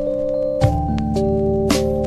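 Background music: sustained chords with occasional sharp percussive hits, the chord changing about half a second in.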